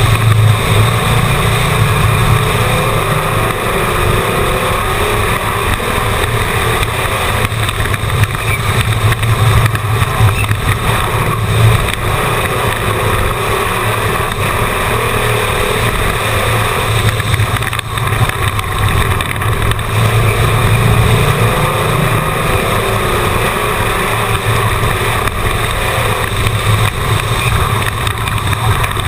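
Race car engine heard from on board, running hard and steady as the car laps a paved oval, with a small dip in level about two-thirds of the way through.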